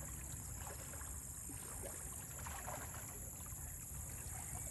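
Water sloshing and splashing lightly as men wade waist-deep through a muddy canal hauling a fishing net, over a steady high-pitched hiss.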